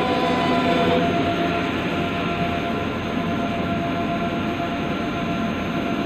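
Steady machine hum and whir of a large-format inkjet printer running, with a few faint steady tones over it.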